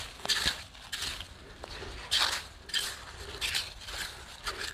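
Small hand rake scraping and digging through wet, gritty tidal-flat sand while raking for Manila clams, in several short, irregular strokes.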